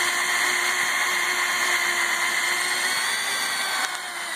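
Lego L motor driving a plastic Technic gear train in a continuously variable transmission model, running with a steady high whine. A click comes near the end, after which it runs a little quieter.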